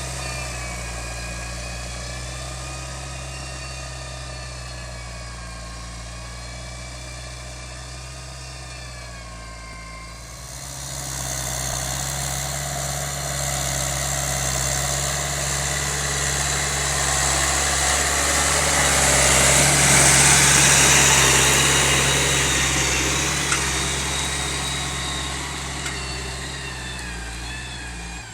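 John Deere 6210 tractor's diesel engine running steadily while ploughing. It eases a little at first, then grows louder to a peak about two-thirds of the way through and fades again, as the tractor passes.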